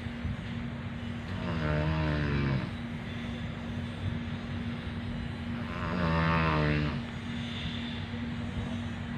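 A person snoring: two drawn-out snores about four seconds apart, each lasting a little over a second, over a steady background hum.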